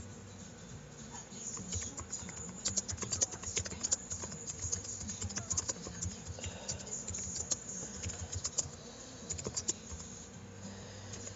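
Computer keyboard typing: quick, irregular runs of keystrokes that begin a couple of seconds in and stop near the end.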